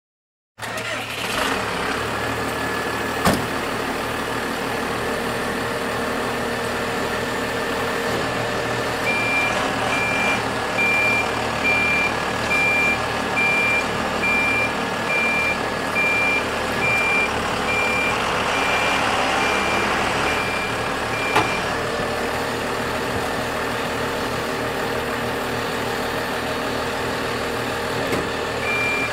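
The Cummins 5.9-litre straight-six diesel of a 1995 Ford F800 bucket truck idles steadily. An outrigger motion alarm sounds a regular run of short, high beeps from about nine seconds in, while the outriggers are lowered, and stops with a sharp click; it starts beeping again near the end. A single sharp knock comes about three seconds in.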